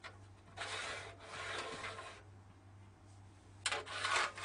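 Metal paper gauges of a manual creasing machine slid along their rail: a scraping rub lasting about a second and a half, then a shorter scrape near the end.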